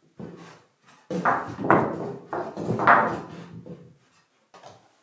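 Wood scraping and creaking in several uneven strokes, the loudest between about one and four seconds in, some rising in pitch.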